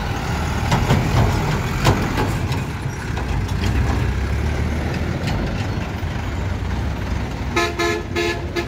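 Truck diesel engines running low and steady as box trucks drive off a ferry ramp, with a few knocks in the first two seconds. Near the end a vehicle horn toots twice in short blasts.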